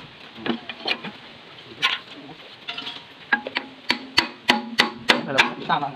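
Hand tools striking the steel boom-cylinder pin and bracket of a Hitachi Zaxis 135 excavator to drive the pin out: sharp metal knocks, each with a brief ringing tone. The knocks are few at first and come quicker, about three a second, through the second half.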